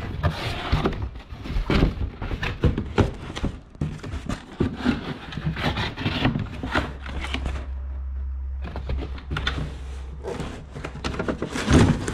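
Cardboard shipping box being handled and opened: flaps rustling, scraping and rubbing in quick irregular bursts as the packing slides against the plastic tool case inside. A steady low hum runs under it for a few seconds in the second half.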